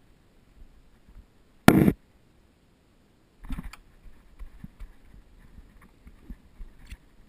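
A single short, loud burst of noise a little under two seconds in, then scattered knocks and clicks from handling around the paramotor frame; the engine is not running.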